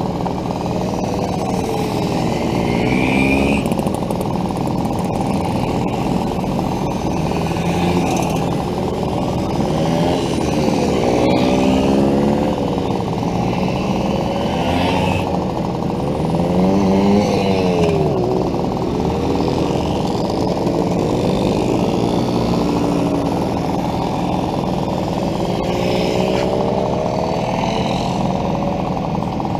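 Vintage 50cc two-stroke mopeds riding past one after another, their small engines buzzing and each rising then falling in pitch as it goes by.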